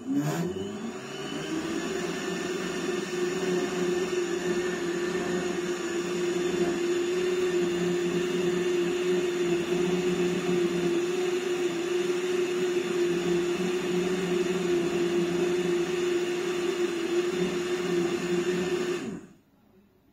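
Small countertop blender's motor starting with a click, spinning up within about a second, then running at a steady whine until it cuts off near the end.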